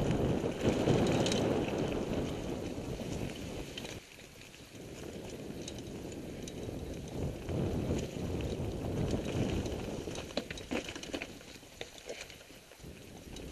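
Mountain bike being ridden over dry dirt and fallen leaves on forest singletrack: a rough, steady rush of tyre noise and wind on the microphone. It drops away sharply about four seconds in, builds again, and a few sharp clicks and rattles from the bike come around ten seconds in.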